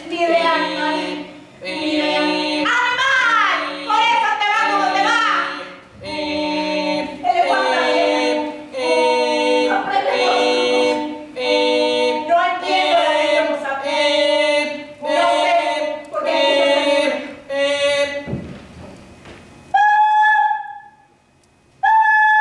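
Several voices singing a cappella in harmony, in short phrases of about a second with brief breaks between them. Near the end the singing gives way to a single high steady tone, which stops briefly and returns.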